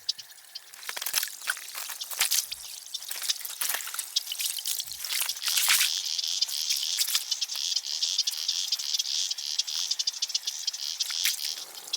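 A steady, high insect trill sets in about halfway through and stops shortly before the end, over scattered sharp ticks and crackles.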